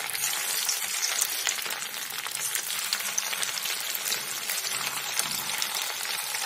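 Rice-dough bites deep-frying in hot refined oil in a kadhai: a steady sizzle with dense, fine crackling.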